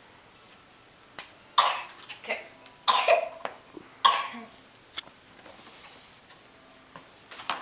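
A person coughing, three loud coughs about a second apart, with a few smaller ones around them.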